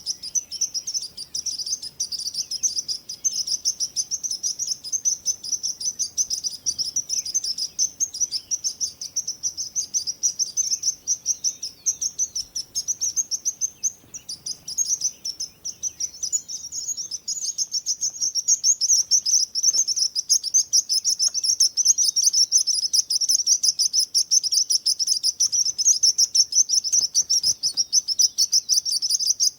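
Songbirds chirping: a dense, continuous chatter of rapid high-pitched chirps, thinning briefly about halfway through and growing louder in the second half.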